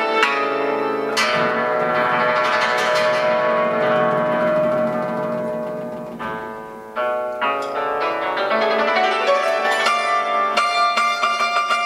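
Yangqin (Chinese hammered dulcimer) being played: a long shimmering run of struck string notes fades away about six seconds in, then quicker struck notes pick up again.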